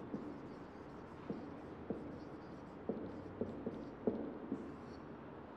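A pen tapping and scratching on the surface of an interactive whiteboard as words are written by hand: a string of light, irregular taps, about two a second.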